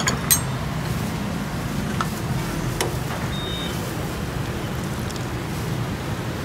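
Steady low background rumble with a few sharp clinks of ceramic bowls and utensils being handled, the first two just after the start.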